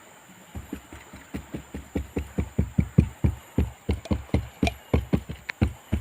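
Rhythmic strokes, about four a second, starting about half a second in and growing louder: hand work on a fiberglass boat hull under repair.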